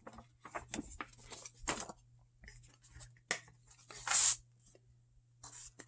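Paper game sheets rustling and sliding as they are handled, a series of short scratchy brushes with a longer swish about four seconds in.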